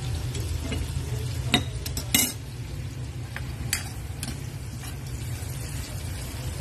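Sliced onions sautéing in oil in a metal wok, stirred with a metal spatula that clicks and scrapes against the pan about five times, loudest about one and a half and two seconds in, over a steady low rumble.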